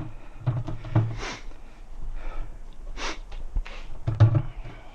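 Handling noise as a motorcycle wheel with a freshly mounted tire is lifted back onto a drum: scattered knocks and scuffs, with breathy sounds of exertion.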